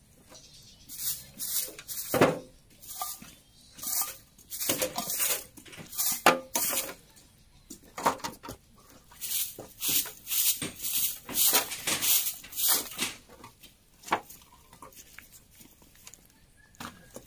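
Brisk scraping strokes of a broom sweeping dry leaves and litter across bare ground, coming in irregular runs and stopping about thirteen seconds in, with a single stroke or two later.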